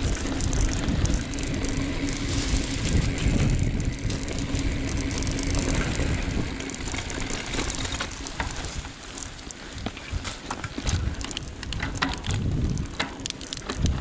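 Mountain bike ridden along a rough dirt trail: wind buffeting the handlebar-mounted microphone over the tyre rumble, with many rattling clicks and knocks from the bike in the second half.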